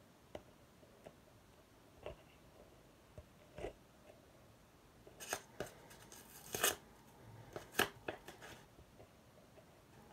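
A paper envelope being torn open by hand: a few scattered rips and crinkles, then a run of louder tearing from about five to eight seconds in.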